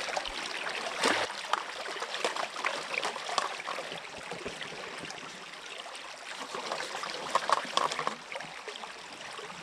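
Creek water running and trickling, with irregular small splashes and sloshes as a gold pan is worked in the water.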